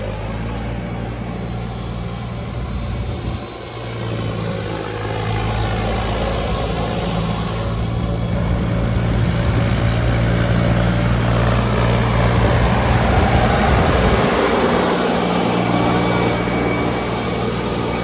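Mahindra DI diesel tractor engine running hard as the tractor spins in tight circles on loose ploughed soil, with a rushing noise of tyres and flung soil. The engine note dips briefly about three and a half seconds in and changes again near fourteen seconds.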